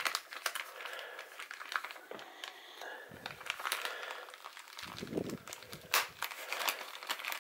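Plastic packaging sleeve crinkling and crackling as a hand handles it and peels at its taped flap, with a few sharper crackles and soft handling bumps.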